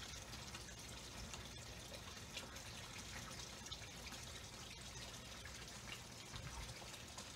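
Faint, steady background hiss with a few light ticks.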